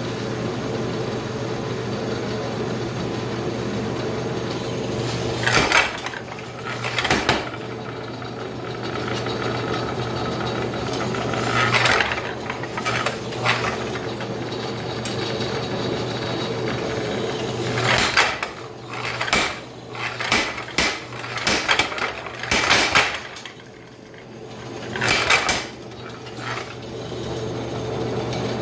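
Power hammer's electric motor humming steadily, with irregular metallic clanks and strikes of steel on steel: a few single knocks, then a cluster of them in the second half.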